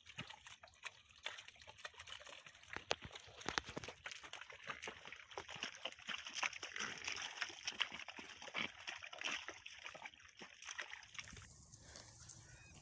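Water buffalo hooves squelching and sloshing through wet mud as the animals tread it to mix it, a dense run of small wet splashes and sucks. About eleven seconds in it cuts to a quieter, low outdoor background.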